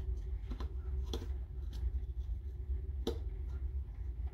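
A few light, irregular clicks and taps of a small part being handled against a plastic battery housing, the sharpest about three seconds in, over a steady low hum.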